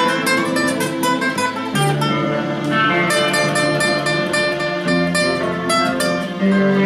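Acoustic guitar playing an instrumental song intro: strummed and picked chords, changing chord three times.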